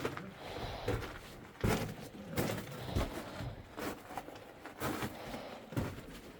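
Footsteps crunching and scuffing on loose rock and gravel, irregular, about one step a second.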